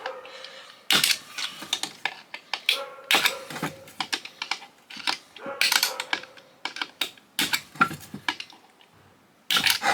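Irregular metallic clicks, knocks and clatter of hand tools and metal parts being worked while an old Cuisinart food processor is dismantled, with a quieter pause near the end.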